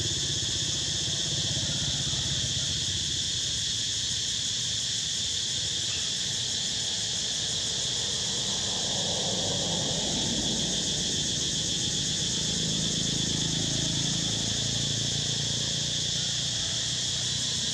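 A steady high insect chorus buzzing without pause, with a low rumble underneath.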